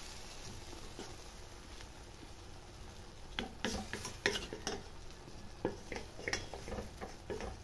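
Wooden spatula stirring chicken adobo and potatoes in a pot, scraping and knocking against the pot repeatedly from about three seconds in, over a faint steady sizzle from the pot.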